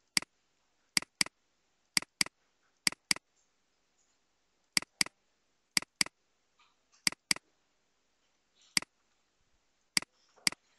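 Computer mouse button clicking: sharp clicks, mostly in quick double-clicks a quarter second apart, about once a second.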